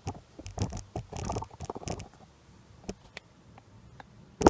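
Metal parts being handled as a B&M shifter cable end is fitted to a TH350 transmission shift lever: scraping and rattling for the first couple of seconds, a few light ticks, then one sharp, loud click near the end.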